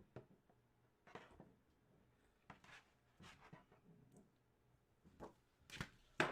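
Faint, scattered rustles and light taps of cards and packaging being handled, with a few sharper clicks near the end.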